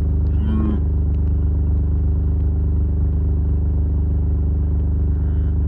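Vehicle engine running steadily at a constant low hum.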